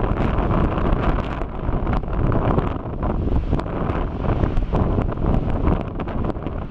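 Erta Ale's lava lake churning and spattering, making a deep steady rumble like surf with many sharp crackles and pops throughout.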